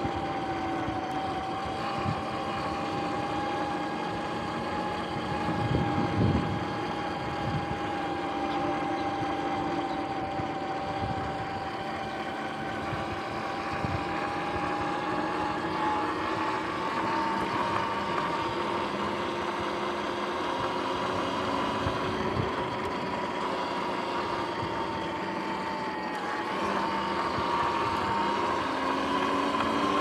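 Sur-Ron X electric dirt bike cruising on pavement: a steady high whine from its electric drive that rises and falls a little with speed, over tyre and wind rumble with occasional bumps, the biggest about six seconds in.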